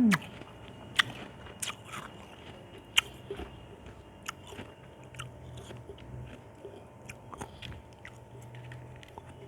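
Ice chunks being bitten and crunched between the teeth: sharp cracks about one and three seconds in, with smaller crunches and chewing between them.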